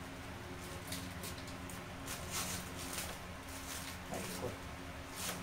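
Crinkling, rustling and short crisp clicks of adhesive tape and a paper firecracker belt being handled, taped and cut with scissors, a few scattered ticks at a time over a steady low hum.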